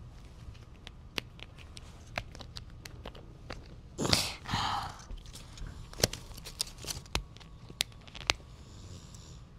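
Fingers and fingernails picking at the seam of a plastic toy ball capsule, giving scattered small clicks and scrapes, with a louder rasp about four seconds in.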